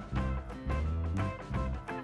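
Background music: a light instrumental track with a plucked guitar line over a steady bass rhythm.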